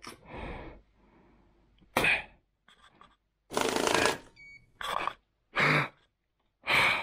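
A person's short, breathy huffs and sharp exhales, six separate bursts, the loudest about two and four seconds in, one with a sneeze-like sound.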